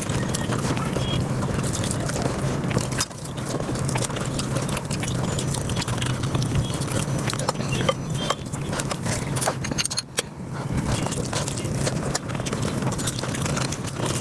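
Close-miked eating sounds sped up about five times: chewing and wet mouth clicks running together into a rapid, dense clatter.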